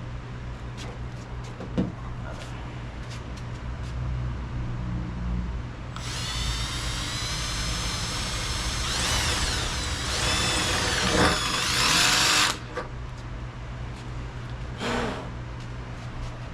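Power drill running for about six seconds, its high motor whine dipping and rising in pitch as it bores a hole through a freshly painted car body panel, then stopping suddenly.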